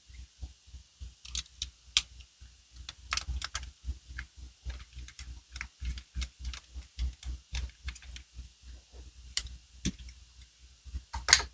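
Small metal parts of a Caswell EDX folding knife being handled and fitted together by hand: light, irregular clicks and taps with soft handling bumps, and a sharper click near the end as the knife goes back together.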